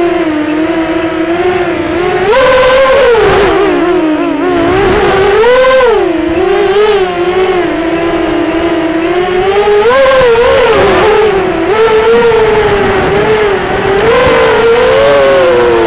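Mini 250-size racing quadcopter's four Cobra brushless motors and GemFan propellers whining in flight, the pitch rising and falling over and over with the throttle. Heard from the onboard camera.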